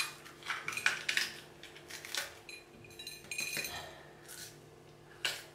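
A bell pepper's core and seeds being broken out by hand over a ceramic plate: a scatter of small crisp snaps and taps. About three seconds in there is a brief ringing clink from the plate.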